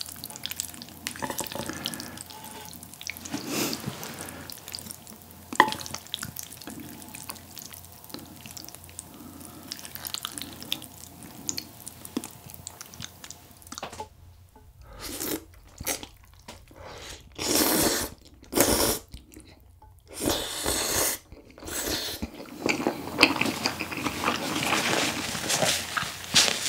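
Chopsticks stirring and lifting instant noodles out of thick tteokbokki sauce, with soft wet squelching and dripping. About halfway through come several loud noodle slurps, then chewing.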